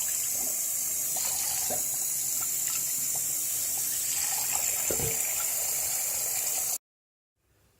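Water running steadily as it rinses sediment out of a plugged condensing-furnace condensate trap. It cuts off suddenly near the end.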